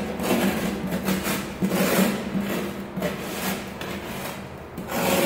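A metal utensil scraping and rasping across the beaded surface of a coated EPS foam board in repeated strokes, roughly two a second, easing off briefly near the end before starting hard again.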